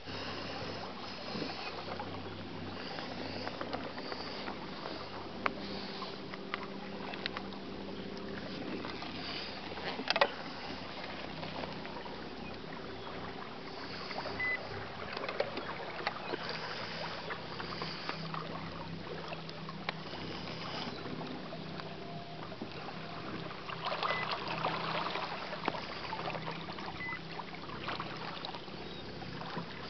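Jet boat moving slowly under a Minn Kota electric trolling motor: steady water and hull noise with a low hum that comes and goes. A sharp knock sounds about ten seconds in.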